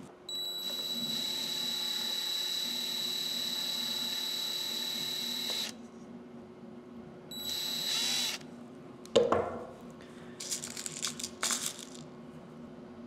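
DeWalt cordless drill spinning a tiny bit through a 3D-printed plastic part: a steady high whine for about five seconds, then a second short run of about a second. A sharp knock follows, then a few light clicks.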